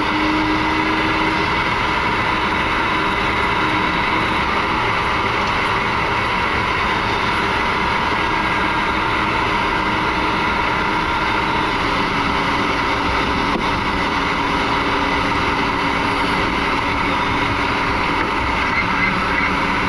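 Steady flight-deck noise of an Airbus A300-600 with both turbofan engines idling on the ground: an even hum and hiss with a few faint steady tones, unchanging throughout.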